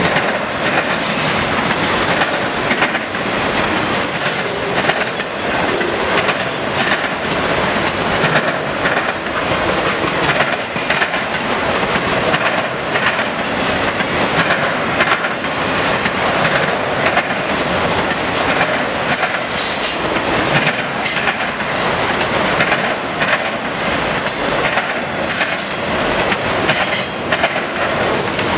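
Freight train of loaded autorack cars rolling steadily past, with a loud continuous rumble and wheels clacking over rail joints. Brief high-pitched wheel squeals come and go throughout.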